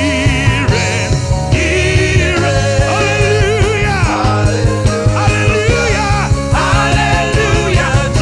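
Upbeat gospel worship music: a band with a steady drum beat and bass under a high lead melody that wavers and bends.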